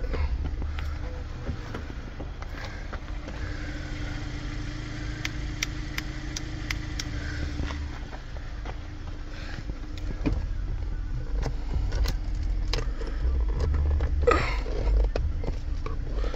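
Low rumble of a car running, with scattered clicks and taps from parts being handled and plugged in.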